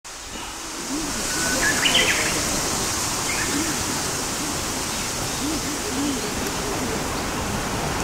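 Outdoor ambience of a steady hiss with faint distant voices, and a bird chirping briefly about two seconds in.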